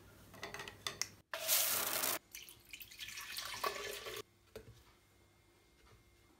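Small clicks of a toothbrush cup being handled, then a bathroom tap running into a sink for just under a second. More handling noise follows and stops abruptly about four seconds in, leaving a few soft knocks.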